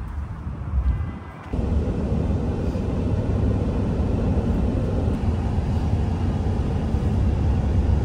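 Wind buffeting the microphone at first. About a second and a half in, it gives way abruptly to the steady road and engine noise heard inside a pickup truck's cab at highway speed.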